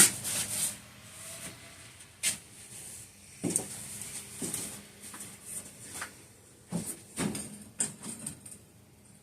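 Scattered knocks, clunks and rattles of objects being shifted and set down while clearing clutter out of the way, about one every second.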